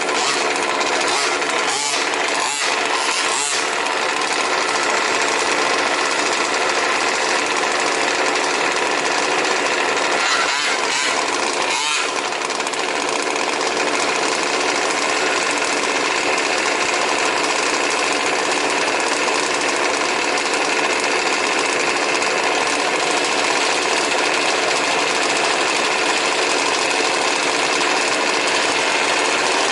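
Several 1/5-scale RC trucks' small two-stroke petrol engines running together, a steady overlapping buzz.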